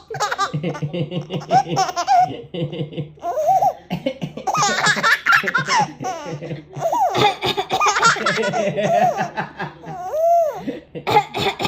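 A baby laughing hard, giggling and belly-laughing in several long bouts with short pauses between.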